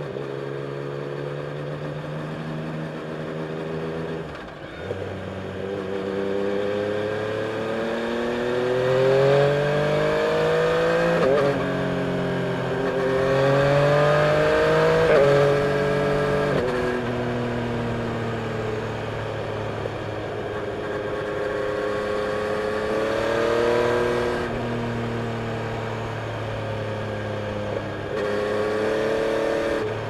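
Yamaha Tracer 900's three-cylinder engine running under the rider, pulling through the gears. Its pitch rises as it accelerates and drops at each gear change, several times over, with steadier cruising stretches between.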